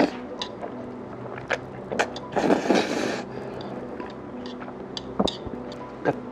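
A person slurping and eating noodles from a bowl held to the mouth, with one long, loud slurp about two and a half seconds in. Light clicks of chopsticks against the bowl come throughout.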